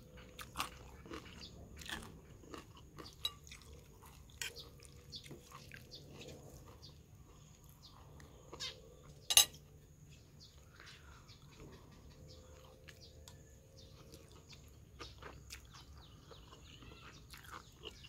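Eating sounds: chewing, with a metal fork and spoon clicking and scraping against a ceramic bowl. A sharp click about nine seconds in is the loudest.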